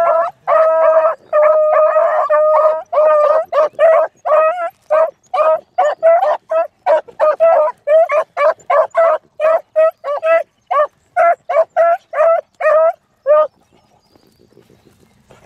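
Beagles baying on a rabbit's scent trail: a fast string of short, pitched barks, with longer drawn-out bays in the first couple of seconds. The baying stops about two seconds before the end.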